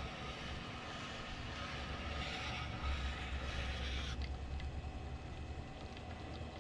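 Motor of a wet sharpening machine running with a low hum while a knife edge is stropped on its compound-loaded strop wheel, a light hiss of the blade on the strop. The hiss cuts off about four seconds in, leaving the machine's hum.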